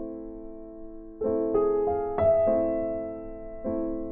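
Background piano music: soft sustained chords struck about every second and left to fade, with a few quicker notes near the middle.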